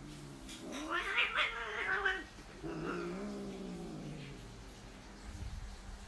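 Silver tabby cat yowling: two long, low, wavering calls, the first rising and turning harsh and loudest about one to two seconds in, the second fading out about four and a half seconds in. A few soft low knocks come near the end.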